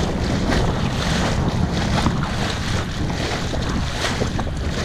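Wind buffeting the microphone in a steady low rumble, over choppy shallow sea water lapping and splashing.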